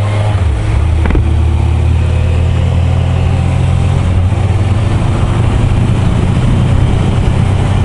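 Kawasaki sport bike engine running at a steady cruise, heard from a camera mounted on the moving motorcycle, with wind rushing over the microphone. A single short knock comes about a second in.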